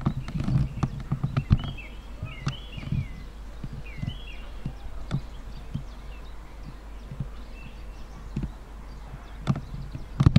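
A bird chirping several times in short falling calls during the first half, over scattered knocks and low thumps that are loudest at the start and near the end.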